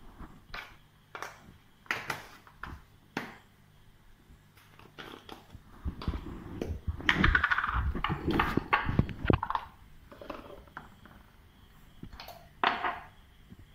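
Scattered light clicks and knocks of kitchen utensils and containers being handled, with a busier, louder stretch of clattering and rustling a little past the middle.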